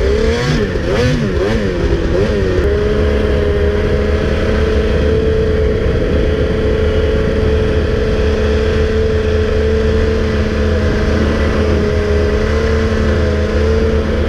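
Snowmobile engine running at a steady high speed, revving up and down a few times early on and then holding an even pitch.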